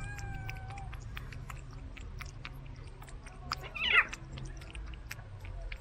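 Cats eating wet cat food chunks in gravy, with many small wet chewing and lapping clicks. A cat's call trails off in the first second, and a cat gives a short, loud cry about four seconds in.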